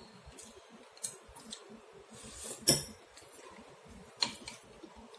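Chopsticks and a soup spoon clinking and scraping against a ceramic noodle bowl, a few separate knocks with the loudest about halfway through.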